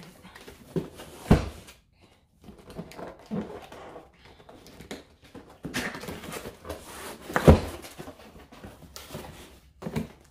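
Large cardboard box being opened by hand: cardboard and tape scraping and rustling as the flaps are worked open, with scattered knocks and two louder thumps, about a second in and about seven and a half seconds in.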